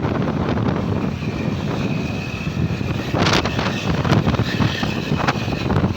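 Low road-traffic rumble with wind buffeting the microphone, a faint steady high tone through the middle and a short loud hiss about three seconds in.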